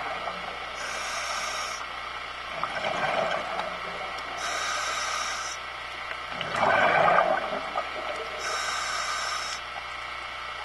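Scuba diver breathing through a regulator underwater: a hissing inhalation about every four seconds, each followed by a bubbly, gurgling exhalation, the loudest about seven seconds in.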